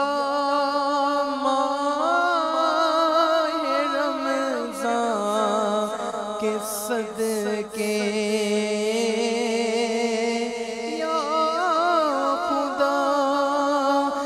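A man singing a munajat, an Islamic devotional supplication, unaccompanied, in long wavering melismatic phrases.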